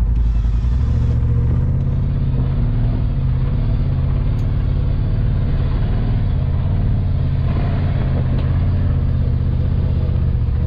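Can-Am Maverick X3's turbocharged three-cylinder engine working hard under load on a steep off-road climb, its note wavering up and down steadily. The CVT drive belt is slipping under the strain: the driver says he was smoking his belt.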